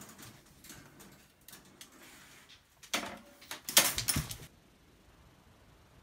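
Wire dog exercise pen rattling and clanking as a puppy climbs over its top panel, with light clicks at first and two loud metallic clatters about three and four seconds in.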